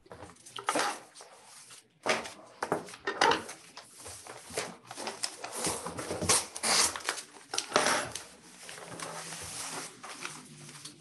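Paper rustling and handling at a table in irregular bursts: bid documents shuffled and an envelope opened.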